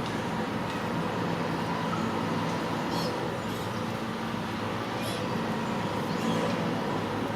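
Steady background hum with a faint low drone, and a few faint clicks.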